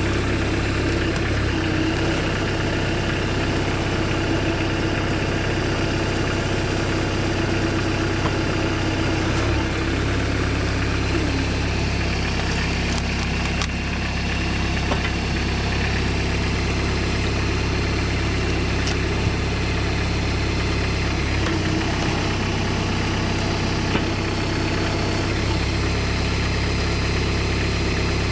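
Homemade tractor's engine running steadily while it drives the hydraulic pump of a log splitter, its note shifting a few times as the ram takes load. A few short sharp knocks stand out over it.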